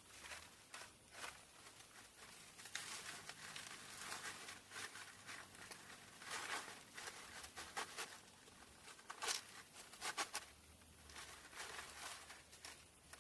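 Irregular rustling and crinkling with scattered light clicks and knocks, loudest about six and nine seconds in.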